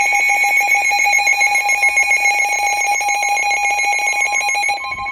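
Emergency Alert System attention tone: a loud, steady electronic alarm of several pitches with a rapid trill, ringing like a telephone bell. Near the end it changes to a single plain tone.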